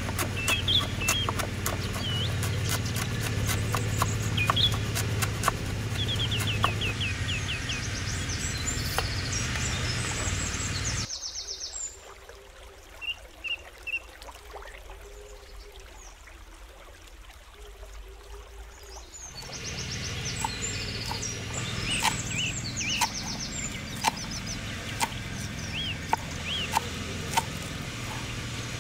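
Birds chirping over a steady low rumble and many sharp knocks or clicks, the knocks coming about once a second in the latter part. For several seconds in the middle the rumble and knocks cut out suddenly, leaving only the birdsong.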